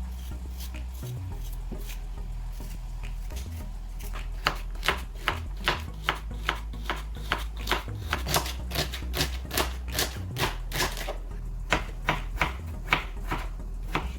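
A knife chopping vegetables on a cutting board: a quick, even run of cuts, about three a second, starting about four seconds in.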